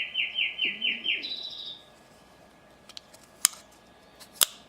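A songbird singing a quick run of about seven repeated chirps that ends in a short, higher trill. Later come a few light ticks and two sharp clicks about a second apart, the loudest sounds here.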